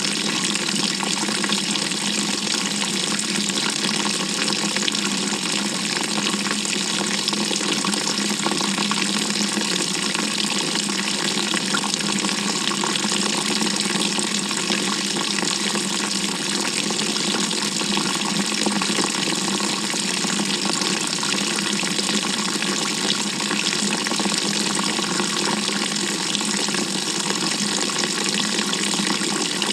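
Water rushing and splashing steadily inside the tub of a GE GTW220ACKWW top-loading washing machine, heard from inside the drum.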